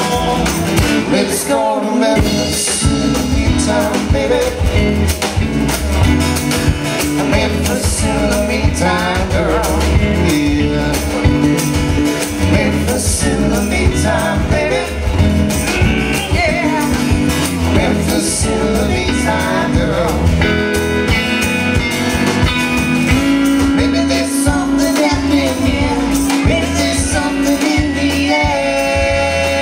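A live band playing a song, with a singer over guitar and a steady beat.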